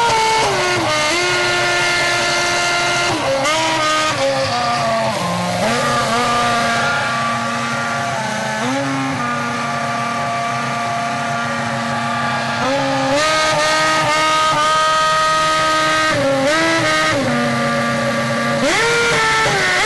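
Toyota Formula One car's V8 engine revved while standing still. Its pitch steps up and down, holding steady at several rev levels between quick blips, with a rise near the end.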